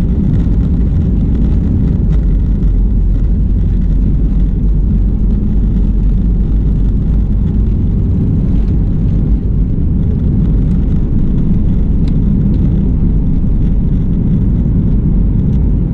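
Cabin noise of a FlyDubai Boeing 737 on its takeoff roll, heard from inside: a loud, steady low rumble of the jet engines at takeoff thrust and the wheels running on the runway.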